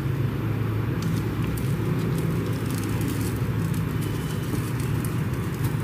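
A steady low hum, with faint light ticks and rustles from hands pressing a coarse dry spice rub onto fish pieces on a steel plate.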